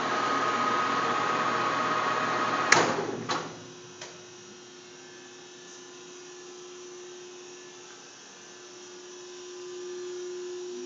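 TOS Trenčín SN40 lathe running with a steady whirring noise and a high tone, switched off with a sharp click about three seconds in; the running noise stops at once, two lighter clicks follow, and a faint steady hum is left.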